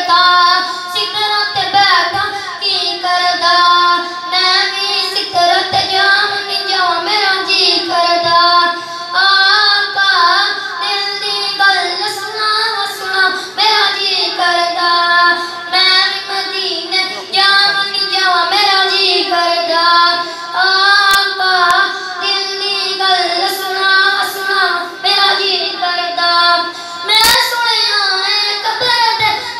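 A boy singing a naat, a devotional poem in praise of the Prophet, solo without instruments into a microphone, in long held notes that waver and bend.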